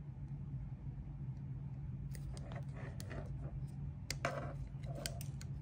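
Wire strippers cutting and stripping thin LED hookup wire: a scattering of faint, short snips and clicks, mostly in the second half, over a steady low hum.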